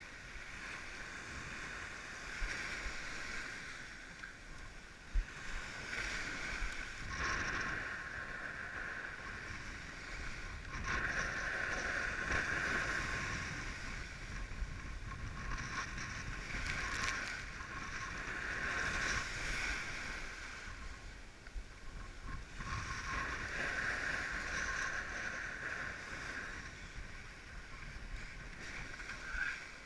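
Water rushing and splashing against a Fanatic FreeWave 76 windsurf board as it sails through shallow, foamy shore break, swelling and easing every few seconds. A single knock about five seconds in.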